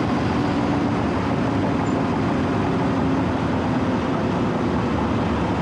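Diesel engine of a Wirtgen W 120 CFi cold milling machine running steadily.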